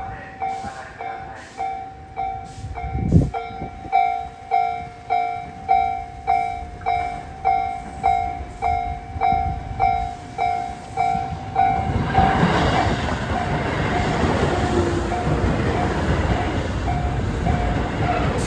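Japanese railway level-crossing alarm ringing its repeated two-tone ding about one and a half times a second. About twelve seconds in, the running noise of a Tobu 8000 series electric train swells up and holds, with the crossing bell still ringing faintly under it.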